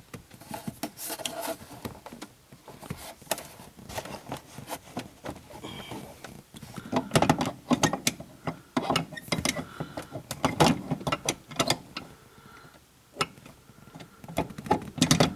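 Irregular clicks, knocks and rattles of tools and metal parts being handled, growing busier and louder about halfway through.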